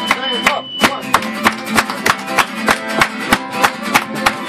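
Acoustic guitars strumming a steady, driving rhythm of about three strokes a second in an Irish folk song. A fiddle's held note ends in the first second.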